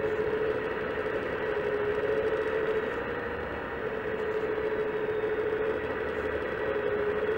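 Steady whine of a Wedico CAT 345D LME RC excavator's hydraulic pump as the boom moves, dipping slightly in pitch twice.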